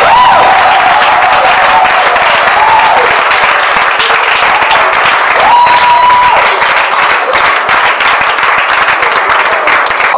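Congregation applauding, with a few voices calling out in long held cries over the clapping.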